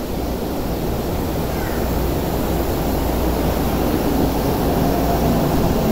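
Electric subway train running into an underground station platform, its rumble and rail noise growing steadily louder as it comes in.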